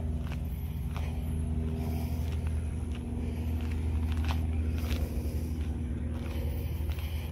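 Aston Martin Rapide's V12 idling steadily, a low, even hum that grows a little louder about four seconds in as the car is seen from behind at its exhaust tips.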